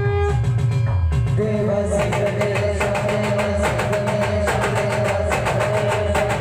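Band music with a fast, heavy drumbeat under long held melody notes. A little over a second in, the held notes change to a new pair, and from about two seconds dense cymbal strikes join in.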